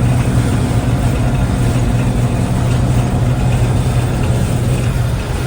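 Combine harvester running steadily while cutting wheat: a constant low engine hum with an even rush of machinery noise over it.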